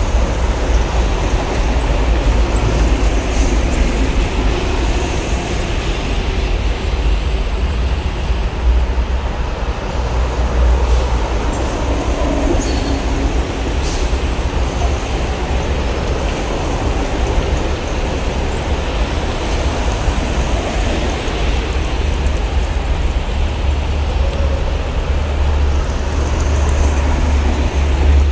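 Steady highway traffic noise from heavy trucks and buses passing on a toll road: a continuous deep rumble of engines and tyres with no breaks.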